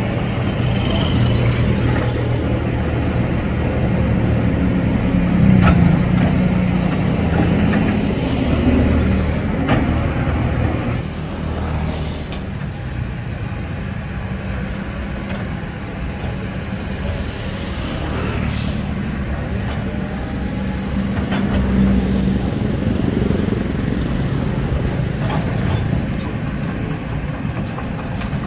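Kobelco SK200 hydraulic excavator's diesel engine running under working load as the arm digs through grass and soil, its steady drone swelling and easing several times with the digging, with scattered faint knocks.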